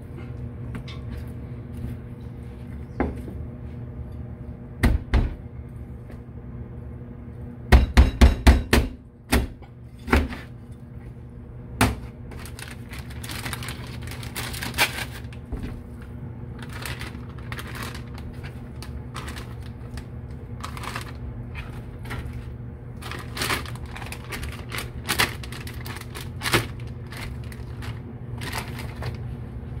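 Knife chopping and knocking against a cutting board while a fish is butchered. A run of five hard strikes about eight seconds in is the loudest part, with scattered single knocks and lighter scraping and clicking, over a steady low hum.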